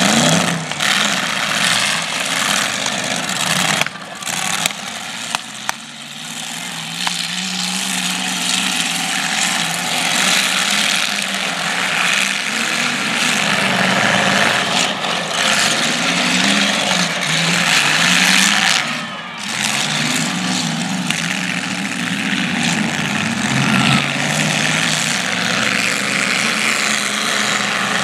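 Demolition derby cars' engines revving up and down unevenly as they drive and ram each other, with a few sharp crashes of car bodies colliding.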